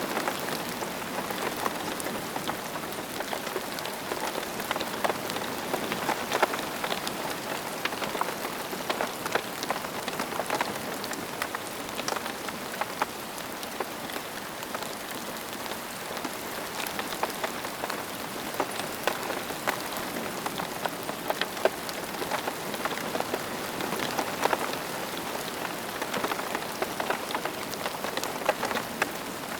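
Steady rain falling, with many individual raindrops pattering on a surface.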